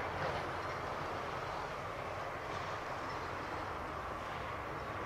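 Jet noise from an Airbus A350-941's Rolls-Royce Trent XWB engines at takeoff thrust as the airliner climbs out, heard as a steady, even rush.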